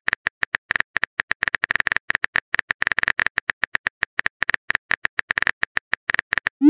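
Phone keyboard typing sound effect: rapid, irregular key-tap clicks, several a second, as a text message is typed out. It ends with a short rising swoosh.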